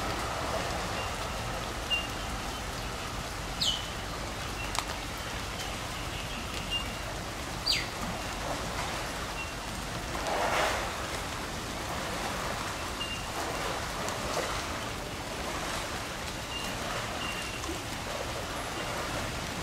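Steady rain falling, heard as an even hiss, with a few short, high bird chirps. About halfway through there is a brief louder rush.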